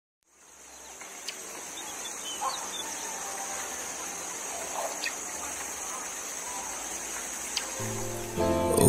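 Lakeside nature ambience fading in: a steady high hiss with a few short bird calls and light clicks. A low sustained music drone comes in near the end.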